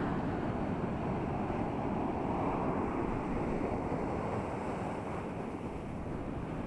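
Ocean surf breaking and washing up a sandy beach, a steady rushing that swells a little two to three seconds in, with wind buffeting the microphone.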